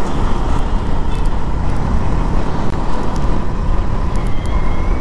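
Riding a motorcycle along a highway at speed: a steady rush of wind and road noise.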